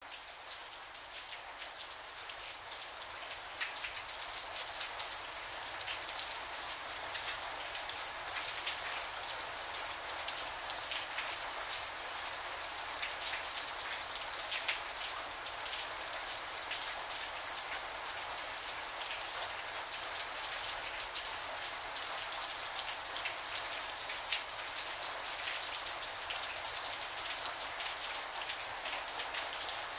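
Steady rain, with the taps of individual drops heard through it, fading in over the first few seconds.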